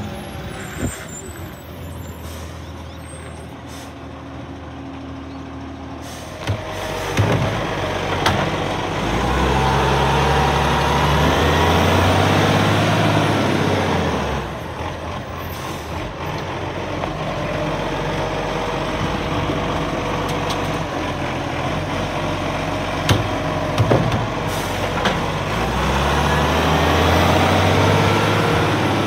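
Side-loading garbage truck's diesel engine idling, then revving up twice for several seconds at a time to drive the hydraulic arm that lifts and empties a wheelie bin, with sharp air-brake hisses and clunks in between.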